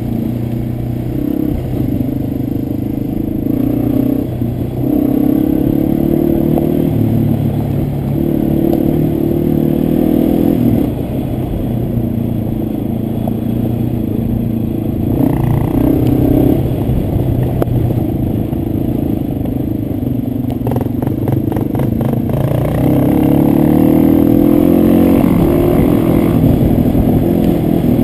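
Dirt bike engines running as the motorcycles ride a dirt trail, the engine pitch rising and falling with the throttle. A brief run of clattering knocks about three-quarters of the way through.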